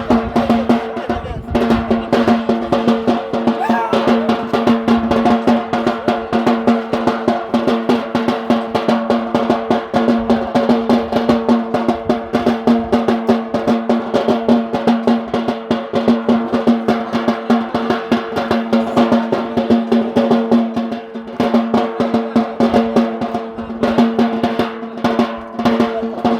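Drums played in a fast, unbroken rhythm for a Yemeni bara' dance, with a steady droning tone held underneath.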